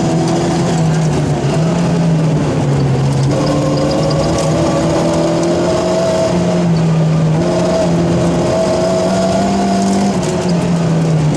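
Rally car engine running hard, heard from inside the car. Its pitch steps up and down several times, as with gear changes.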